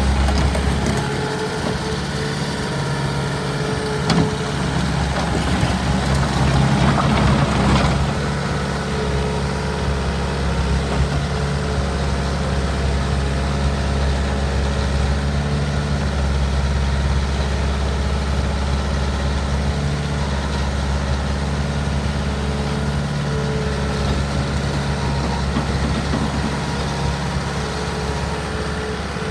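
Bobcat T300 skid steer's diesel engine idling steadily, with a louder, harsher stretch about six to eight seconds in.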